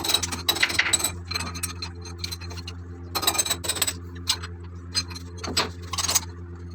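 Metal tools and engine parts clinking and scraping at irregular moments, over a steady low machinery hum.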